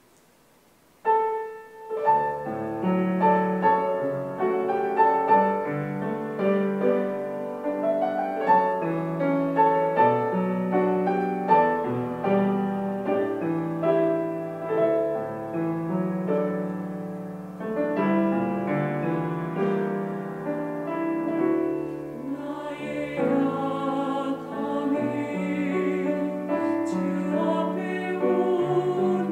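Grand piano playing a slow hymn introduction, starting about a second in. A mixed church choir comes in singing over the piano about three-quarters of the way through.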